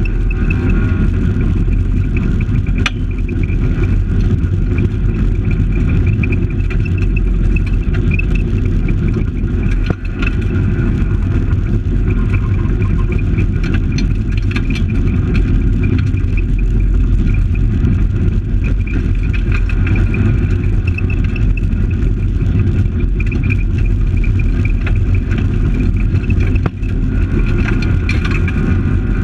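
Fiat Palio rally car heard from inside the cabin, its engine running hard at speed on a gravel stage, with steady road and gravel rumble and a few sharp knocks. The loudness dips briefly near the middle and again near the end.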